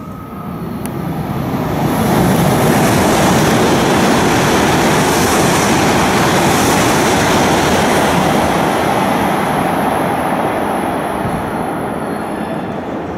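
Hokuriku Shinkansen E7/W7-series bullet train passing through a station at speed without stopping. A loud rush of wheels and air builds over the first two seconds, holds steady while the cars stream past, then eases off slightly near the end.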